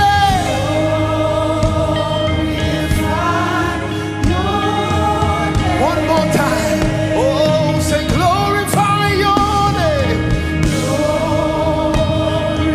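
Live gospel worship music: voices singing long held notes that slide up and down, over steady keyboard and bass backing.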